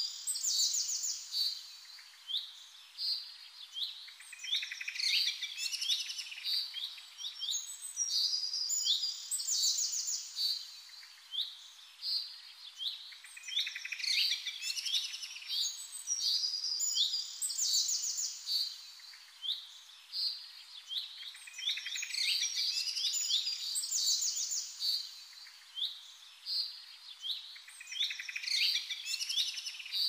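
European robin singing: a long run of high, thin, warbling phrases, each a second or two long, with short pauses between them.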